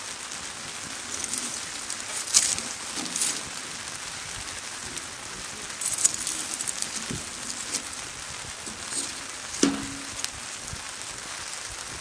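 Wood campfire burning, with a steady hiss and scattered sharp crackles and pops, the loudest about two and a half, six and nine and a half seconds in.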